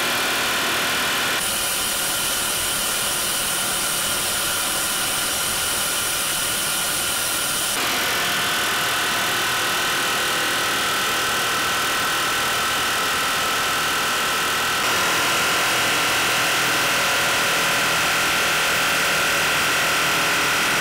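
Pneumatic air hammer running continuously, driving a diesel injector removal tool clamped onto an injector, a steady rapid rattle whose pitch shifts slightly about 1.5, 8 and 15 seconds in.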